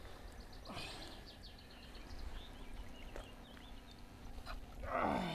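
A man's long, falling groan of effort as the heavy catfish is lifted off the mat, near the end. Before it, a few faint bird chirps.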